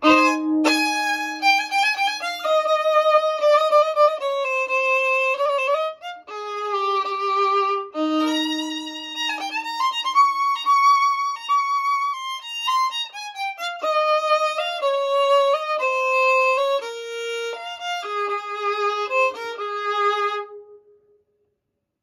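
Violin played with a bow: a melody of held and moving notes, stopping about a second before the end.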